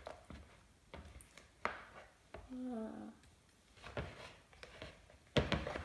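Scattered light taps and clicks from mixing and handling slime-making materials, with a short wavering hummed note about halfway through and a quick cluster of louder clicks near the end.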